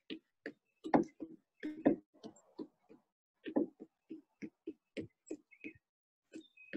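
Footfalls of someone jogging in place with high knees on a wooden deck: a quick run of thuds at roughly three a second, with a short pause about three seconds in.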